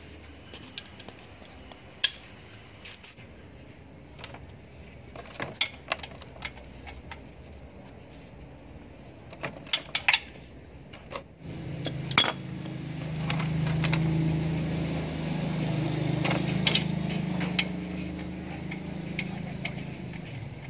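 Sharp metallic clinks and clicks of a wrench working on the Toyota Avanza 1.3's engine oil drain plug as it is loosened. About halfway through, a steady low hum comes in and holds.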